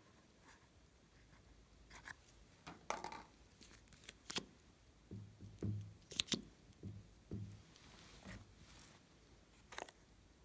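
Glossy slime being mixed and pressed: scattered sticky clicks and crackles, then a run of soft low squelches about every half second from about five seconds in.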